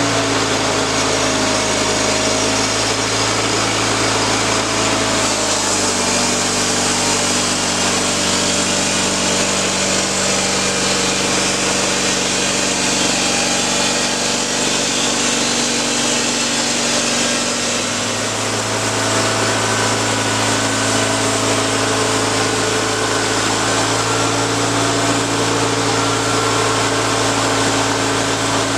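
A small gasoline engine running steadily. Its pitch changes about six seconds in and again around eighteen seconds, with a brief dip in level at the second change.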